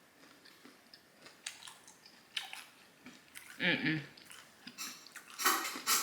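A woman biting and chewing a mouthful of toast topped with scrambled egg and bacon close to the microphone, with small clicks and wet smacking. There is a brief hum about halfway, and louder smacking near the end.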